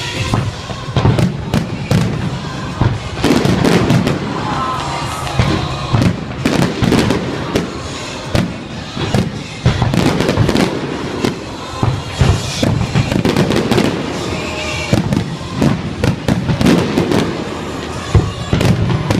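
Fireworks going off in a rapid, irregular barrage of sharp bangs and crackles over a continuous low rumble.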